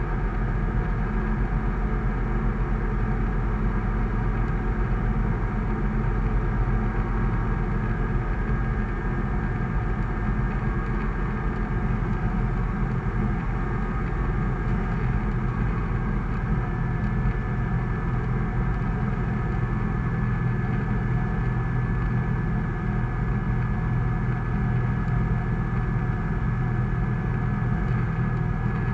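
Sling 2 light aircraft's piston engine and propeller running steadily in flight, heard from inside the cockpit, with air rushing over the canopy.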